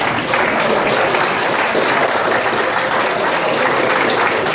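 Crowd applauding steadily, a dense wash of clapping for an award winner just announced.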